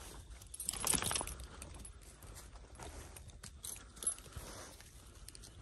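Faint footsteps on a woodland trail with light jangling and clicking of metal gear, and a louder rustle about a second in.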